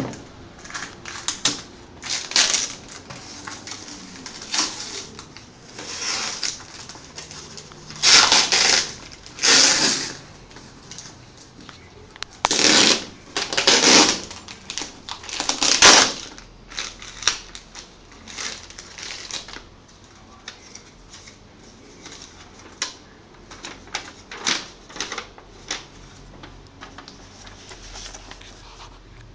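Irregular rustling, scraping and clicking from a packaged Apple keyboard being handled during unboxing, with several louder, longer rustles in the middle and short clicks near the end.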